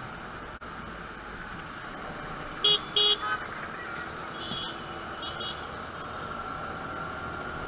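Steady running noise of a moving scooter with two short, loud vehicle-horn honks close together about two and a half seconds in, followed by a few fainter horn toots a couple of seconds later.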